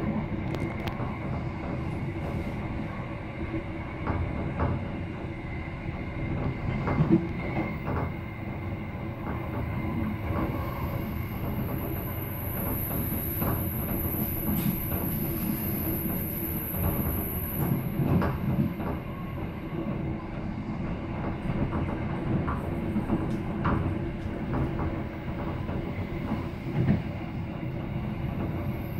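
A train running along the track: a steady rumble of wheels on rail with a low hum, broken by occasional sharp clicks and knocks.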